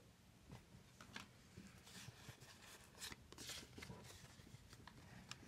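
Faint handling of Pokémon trading cards: soft rubbing and sliding of cards against each other, with a few light ticks.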